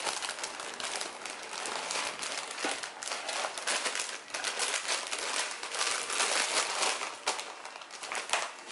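Plastic grocery packaging crinkling and rustling as packets are picked up and moved about in a plastic basket, an irregular run of small crackles.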